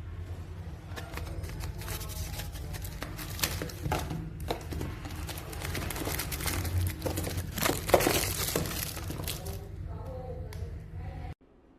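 Handling noise: irregular clicks and crinkling of small plastic items and packaging over a steady low hum, cutting off suddenly near the end.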